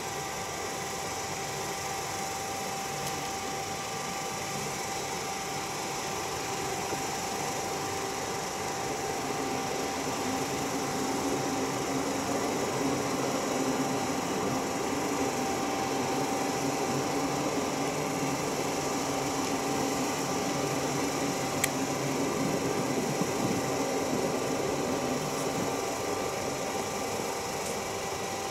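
Distant Rhaetian Railway electric train, led by an ABe 8/12 Allegra unit, running along the valley: a steady rumble and hum that swells in the middle and eases near the end. A single short click about twenty seconds in.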